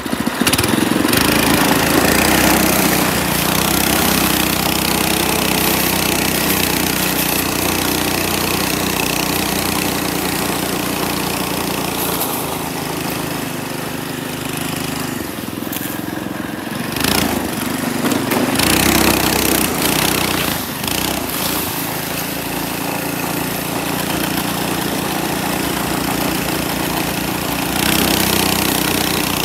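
Homemade snowdog track sled's 212cc Pro Point single-cylinder engine running hard as the machine pushes through deep snow. Its note dips and picks up again a few times around the middle.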